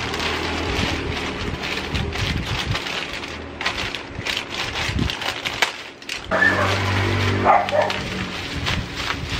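Plastic courier mailer being handled and torn open, with crinkling and rustling of plastic and bubble wrap. About six seconds in a pitched sound lasting about two seconds stands out as the loudest part.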